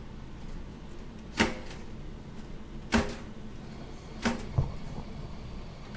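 Three sharp clacks of hard items being handled at a breakfast counter, about a second and a half apart, with a smaller knock just after the third, over a steady low hum.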